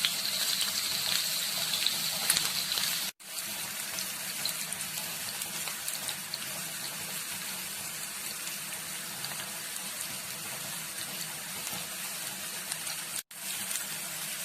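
Chopped onion and green chillies sizzling in hot oil in a frying pan, a steady hiss that drops out briefly twice.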